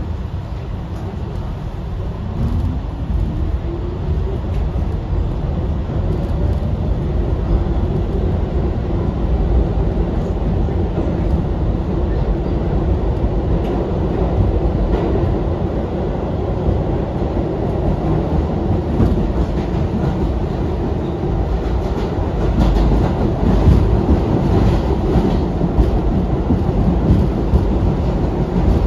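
R62A subway train running on the Lexington Avenue line. A whine rises in pitch over the first several seconds as the train picks up speed, then holds steady over a continuous rumble of wheels on rail. Clicks from the track joints grow louder toward the end.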